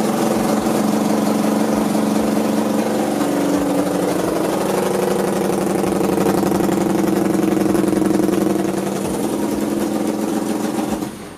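Air-cooled motorcycle engine in a go-kart idling steadily, its note shifting slightly about three seconds in, then cutting off near the end.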